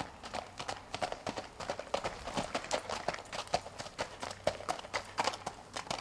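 Hoofbeats of a ridden Missouri Fox Trotter filly walking on a hard dirt-and-gravel drive: a steady, even run of hoof strikes, about four a second.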